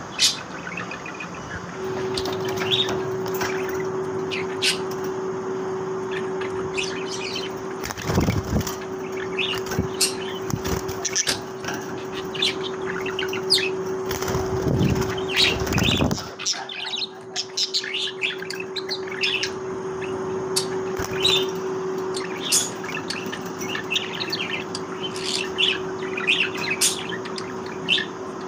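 Budgerigars chirping and chattering in many short, quick calls over a steady low hum. Louder rustling comes about eight seconds in and again around fifteen seconds.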